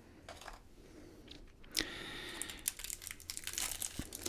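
Packaging being handled while a pen is unwrapped: faint rustling at first, then from about two seconds in a sudden, continuous crinkling and crackling of wrapping.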